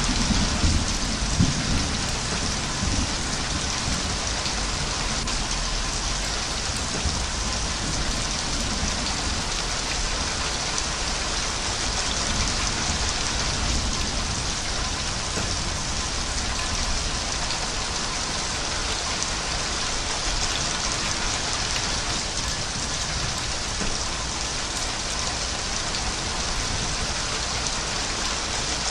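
Steady, heavy rain falling, an even hiss throughout. A low rumble of thunder dies away in the first couple of seconds.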